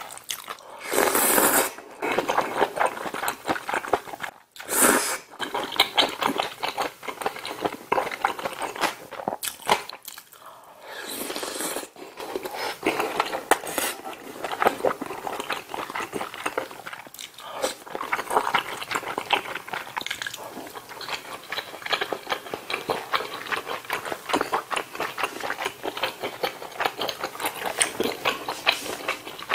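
Close-miked eating: wet chewing and mouth sounds from a mouthful of budae-jjigae with ramen noodles and soybean-sprout bulgogi, steady throughout. There are a few louder slurps about one, five and eleven seconds in.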